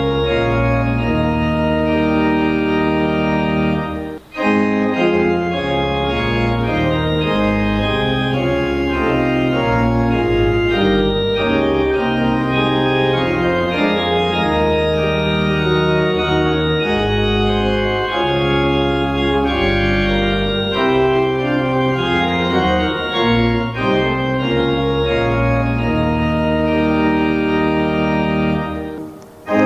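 Organ playing a hymn tune in sustained chords with no singing, pausing briefly between phrases about four seconds in and dying away near the end as a verse closes.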